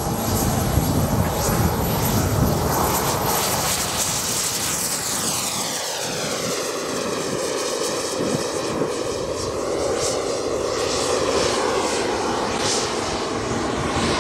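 Four micro turbine jet engines of a 1/5 scale model Avro Vulcan running at high power as it climbs out after takeoff: a steady jet roar. A high turbine whistle fades over the first few seconds, and from about four seconds in the roar takes on a sweeping, phasing swirl as the aircraft climbs away.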